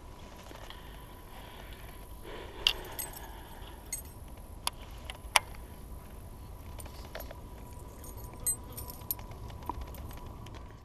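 Scattered light clicks and clinks of fishing tackle being handled, from a baitcasting reel and rod, about eight sharp ticks spread over several seconds. A low steady rumble runs underneath.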